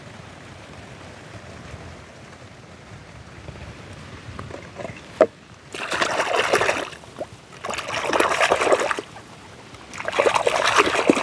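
A hand splashing in shallow muddy water, in three bouts of about a second each starting about six seconds in. Just before the first bout there is a single sharp click.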